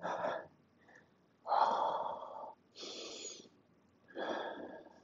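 A man breathing hard through four heavy breaths, the second the loudest. He is winded and catching his breath between sets of heavy kettlebell swings.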